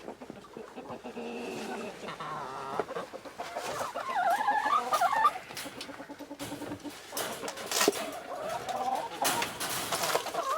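Chickens clucking in short wavering calls, in two bouts, with scattered knocks among them.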